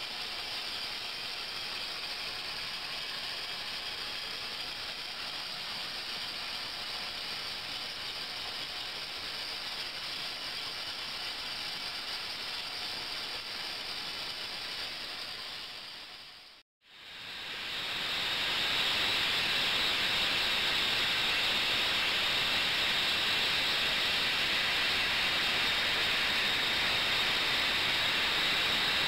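Water churning in an ultrasonic tank under ultrasonic power, making a steady hiss. About 17 seconds in it cuts out for a moment, then returns louder with a faint high whine.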